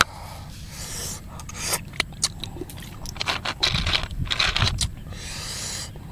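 Cooked cockle shells being picked through and prised open by hand on a platter, shells clicking and scraping against each other in short bursts.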